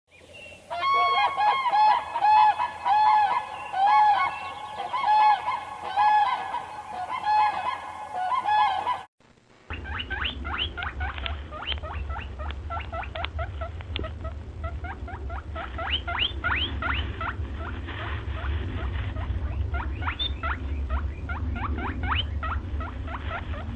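Animal calls in two clips. First, about nine seconds of loud, repeated pitched calls, roughly one to two a second, that stop abruptly. Then, after a brief gap, a long run of quick, high chirps over a low steady hum.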